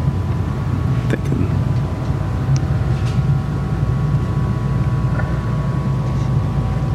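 A steady low mechanical hum with a faint steady high whine over it, and a light click about a second in.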